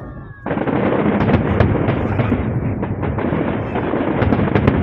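Fireworks display: after a brief lull with a fading whistle, a dense, loud barrage of shell bursts and crackling starts suddenly about half a second in and keeps going without a break.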